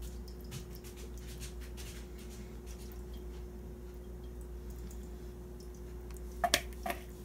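Thick egg-and-milk batter pouring from a plastic mixing bowl onto cubed bread, with soft squishing and faint ticks over a steady low hum. A few sharper clicks come near the end as the bowl is tipped further and the wire whisk knocks against it.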